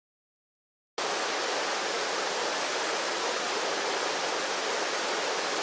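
Dead silence for about a second, then a steady, even hiss cuts in abruptly and holds without change.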